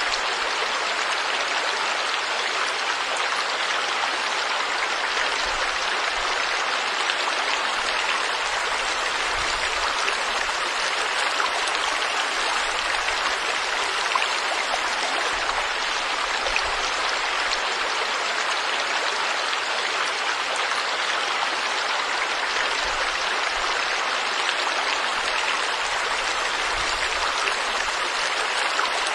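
Forest stream flowing over rocks: a steady, even rush of water.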